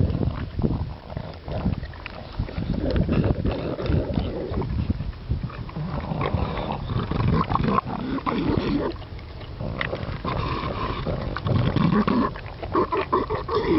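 British bulldog eating with its muzzle in the food: irregular chewing, slurping and licking, mixed with loud snuffling, grunting breaths through its nose.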